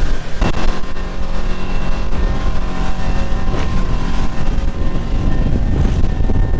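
A motorboat running at speed over open water: a steady engine drone under heavy rushing wind and water. Two short knocks come about half a second and three and a half seconds in.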